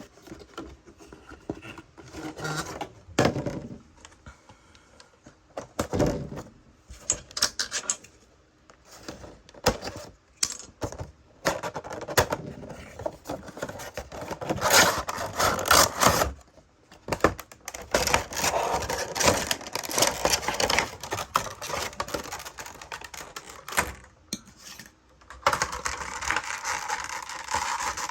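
A Funko Pop box being opened and unpacked by hand: cardboard and plastic packaging scraping, clicking and crinkling in irregular bursts, growing denser and steadier in the second half.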